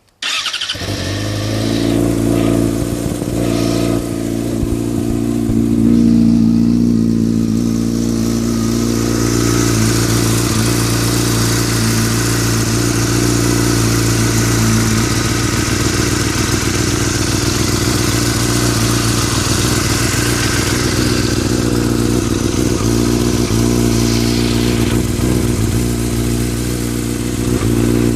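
2003 Yamaha R6's inline-four engine starts up just after the beginning and runs steadily at idle, with a rattling noise that the owner is unsure is normal.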